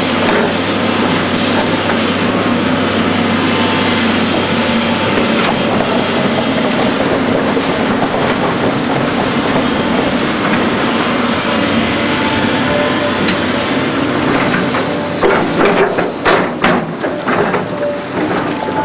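Volvo tracked excavator's diesel engine running steadily under work as the machine moves in the mud. About three-quarters of the way through comes a run of irregular metallic clanks and knocks from the tracks and undercarriage.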